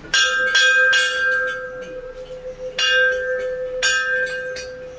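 Large brass Hindu temple bell rung by hand, about five strikes: three quick ones at the start, then two more about a second apart. A steady ringing hum carries on between the strikes.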